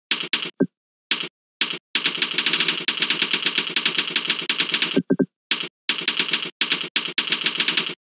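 Computer keyboard keys being struck rapidly in fast typing, with long dense runs of clicks broken by short pauses. A few short falling tones sound between the runs.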